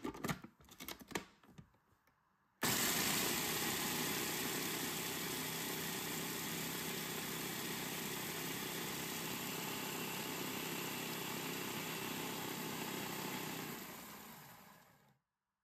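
Electric food processor switched on with a sudden start, its motor and blade running steadily as they grind puffed rice cereal into fine crumbs, then spinning down and stopping near the end. A few clicks come before it starts.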